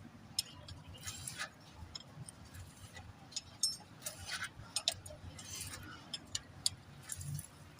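Scattered light clicks and taps of tools and metal engine parts being handled, at irregular intervals.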